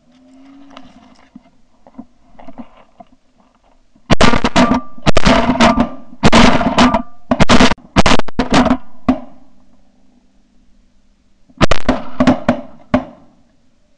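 A rapid string of shotgun blasts from several hunters firing at low snow geese, recorded from a barrel-mounted camera, then a second short volley near the end. Faint goose calls come before the shooting starts.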